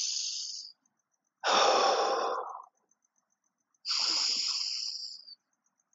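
A man breathing audibly in and out through the mouth in slow, deliberate breaths while holding an exercise pose. There are three breaths, each about a second long, with short silent pauses between them.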